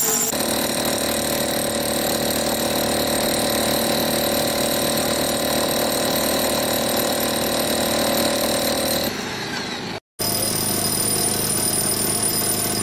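Machinery with a small engine or motor running steadily, a constant hum with a high whine in it. The sound changes about nine seconds in and cuts off abruptly for a moment at about ten seconds. A similar steady machine noise then resumes.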